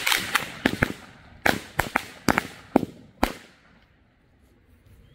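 Astronaut petard firecrackers exploding one after another: about a dozen sharp bangs at irregular intervals over roughly three seconds, then they stop.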